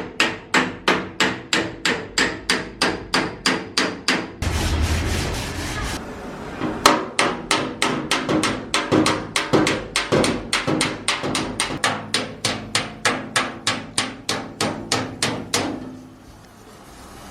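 Hammer tapping out a dent in a Daewoo Lanos's sheet-metal body panel: steady blows at about three a second, each with a short metallic ring. About four seconds in, the hammering gives way to a rushing noise for a second or two, then resumes and stops near the end.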